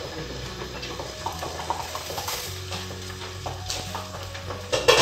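Water boiling in a kadai used as a steamer, with steam hissing as the glass lid is lifted off the steamed rice noodles. A brief clatter comes near the end.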